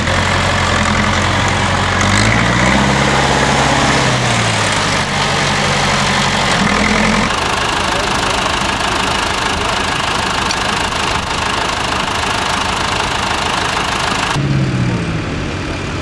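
Tractor diesel engines running at a ploughing match. The revs rise and fall about two seconds in, and briefly again near the end.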